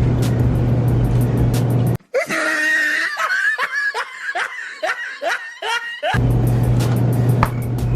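Background music with a steady beat breaks off abruptly about two seconds in, replaced by a person laughing in quick repeated bursts for about four seconds. The music then comes back in.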